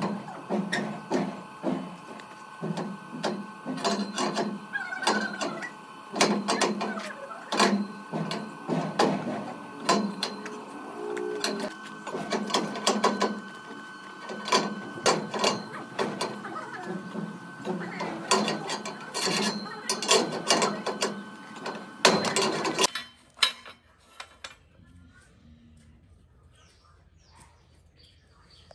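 Metal workshop work: a running machine's steady hum with many irregular sharp metallic clicks and knocks, two or three a second, stopping suddenly about 23 seconds in and leaving only faint sound.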